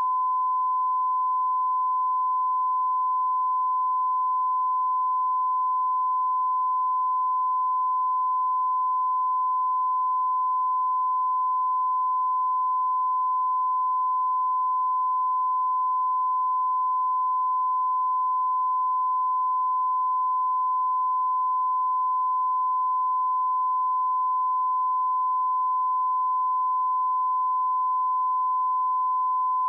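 Pure 1015 Hz sine-wave test tone, a single steady high beep held at constant pitch and level.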